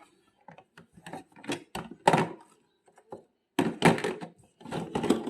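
Irregular knocks and clatter, as of hard objects being handled and set down. No motor is running.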